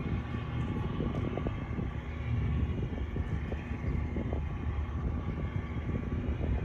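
Towboat's diesel engines droning across the water as it pushes a barge: a steady low rumble with a faint constant hum.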